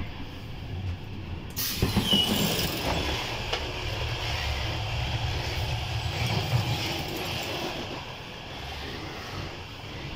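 Running noise of a moving passenger train heard from inside: a steady low rumble. About a second and a half in, on entering the gangway between coaches, it grows suddenly louder and hissier with wheel-and-track rattle, and it eases again about eight seconds in.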